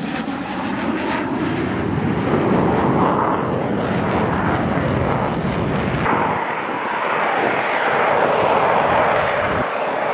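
Jet noise from U.S. Navy Blue Angels F/A-18 Super Hornets flying past overhead: a loud, continuous roar of turbofan engines whose tone sweeps slowly as the jets pass. It changes abruptly about six seconds in and again near the end.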